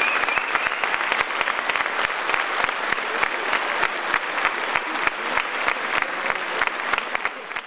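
Audience applauding at the end of a song, a dense steady clapping that fades out near the end.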